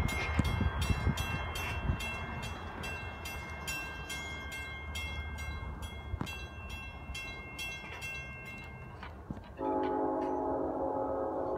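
Grade-crossing warning bell ringing about three times a second over the fading low rumble of a departing train. The bell stops a little before the last few seconds, then a train horn starts suddenly and holds one steady chord.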